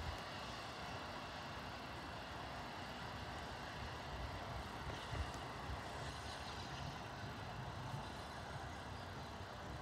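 Steam locomotive approaching in the distance: a faint, steady low rumble with no clear beat.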